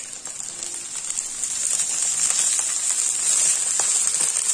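Frying sizzle in a hot wok as boiled rice is tipped in onto scrambled egg and vegetables. The sizzling grows louder about a second and a half in.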